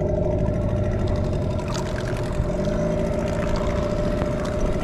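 Boat's outboard motor running steadily at an even pitch.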